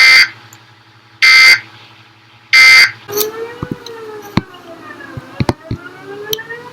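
Three short bursts of EAS digital data tones, the end-of-message code, at evenly spaced intervals. From about three seconds in, an outdoor warning siren wails, its pitch rising and falling slowly, with scattered sharp clicks.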